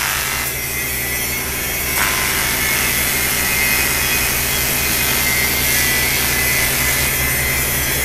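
TIG welder arc on an aluminium alloy wheel: a steady buzz and hiss with a low mains-like hum, as the crack in the rim is welded.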